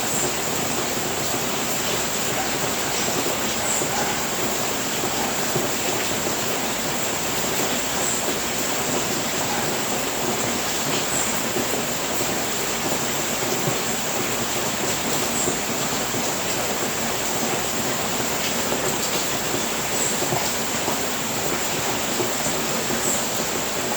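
Steady rain, an even unbroken hiss, with a faint short high chirp every few seconds.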